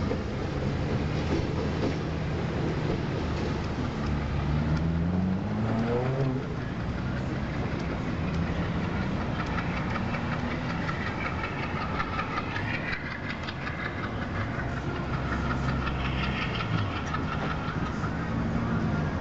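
MLW diesel-electric locomotive hauling a freight train away, its engine running under load and rising in pitch about five seconds in as it revs up.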